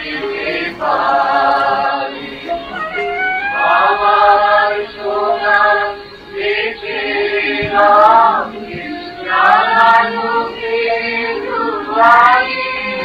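A song with singing voices, sung in long held phrases with short breaks between them.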